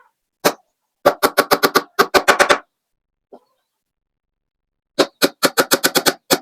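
Rapid runs of sharp knocks on wood, about eight a second, in bursts of one to two seconds: a single knock, then two quick runs, a pause of about two seconds, and another run near the end.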